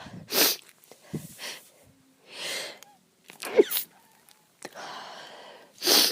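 A woman sneezes three times, a few seconds apart, with breathy intakes of breath between them.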